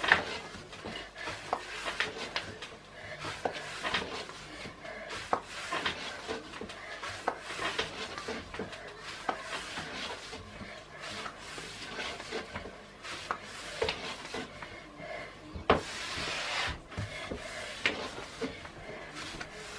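Kitchen handling sounds: wood rubbing with many scattered light clicks and knocks, and one sharper knock about three-quarters of the way through.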